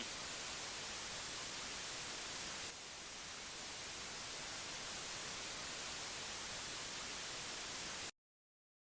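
Steady static hiss with no tones in it, slightly quieter from about three seconds in. It cuts off abruptly into dead silence about a second before the end.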